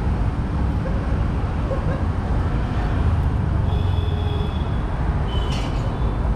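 Steady low rumble of road traffic, with faint brief high-pitched tones about four seconds in and again about five and a half seconds in.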